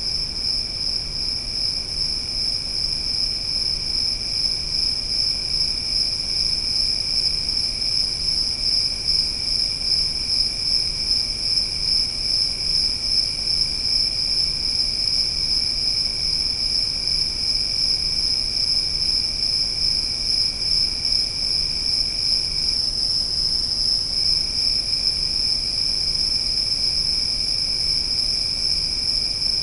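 Crickets trilling in a continuous, steady high chorus, with a second, lower and fainter trill that drops out for a second or two about three-quarters of the way through.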